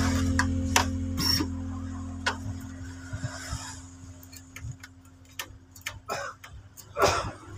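A held background-music chord fading out over the first few seconds, with scattered light clicks and taps of hands handling parts inside an Epson LQ-2190 dot-matrix printer, and a louder knock near the end.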